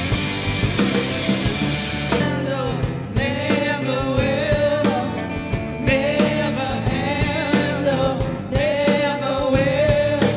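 Live rock band playing, with drum kit, electric guitar, bass and keyboard, and singing over it from about two seconds in. The music stops abruptly at the end.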